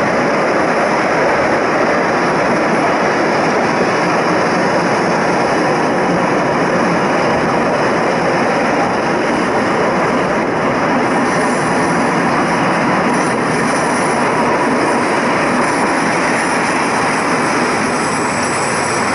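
Zillertalbahn diesel railcar running along the narrow-gauge line, a steady loud rumble of engine and wheels on rail heard from on board. A faint high squeal joins in about halfway through.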